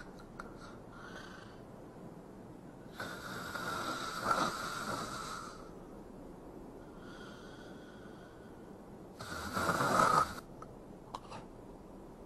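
A sleeping woman snoring: two long, loud snores, one about three seconds in and one near the end, with quieter breaths between them.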